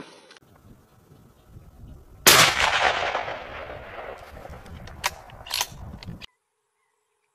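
A single rifle shot about two seconds in, its report echoing and fading over a couple of seconds. Two fainter sharp cracks follow near the end, then the sound cuts off suddenly.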